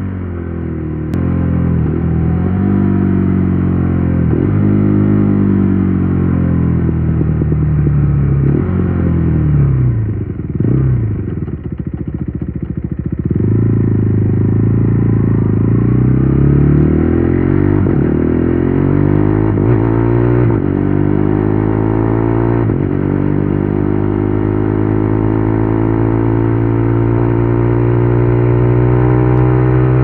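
KTM Duke 390 Gen 3's single-cylinder engine through an Akrapovic exhaust. It slows with falling revs and downshifts in the first part and burbles low and rough at low speed. From a little under halfway it accelerates hard through the gears, the pitch rising in repeated sweeps.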